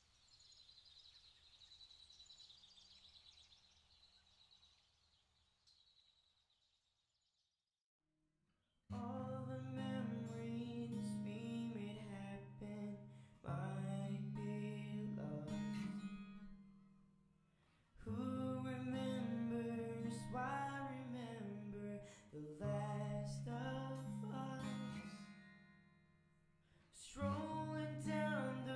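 A faint, high, steady background buzz fades away into silence. About nine seconds in, acoustic guitar music starts and plays in strummed phrases that swell and die away, each new phrase starting sharply.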